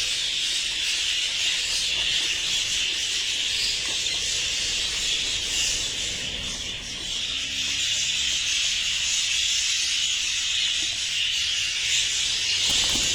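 A flock of budgerigars chattering together, a continuous dense high-pitched warbling with no pauses.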